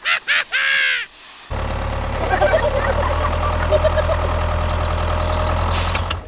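A brief high call that swoops in pitch. About a second and a half in, a steady low engine hum starts, like a small tractor idling, with a chattering rattle above it, and it stops just before the end.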